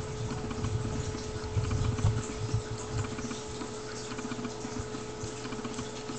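Seven-week-old Newfoundland puppies play-wrestling: low growls and grunts, loudest around two seconds in, with small ticks of claws and paws scuffing on a vinyl floor.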